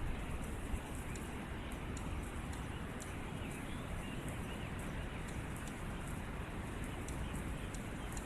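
Steady outdoor noise with a low rumble, and faint footsteps ticking about twice a second.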